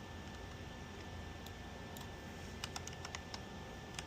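Sparse clicks of a computer keyboard and mouse as values are entered into slicer software, with a quick cluster of keystrokes about three seconds in, over a low steady background hum.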